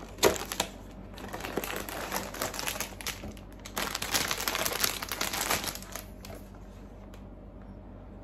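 Cardboard blind box being opened and its packaging bag handled: a sharp snap just after the start, then crinkling in two stretches, about a second in and again around four seconds in, dying down near the end.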